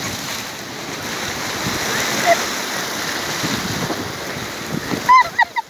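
Sea surf washing in over a rocky shore: a steady rush of breaking, foaming water. A few short high-pitched voices break in near the end.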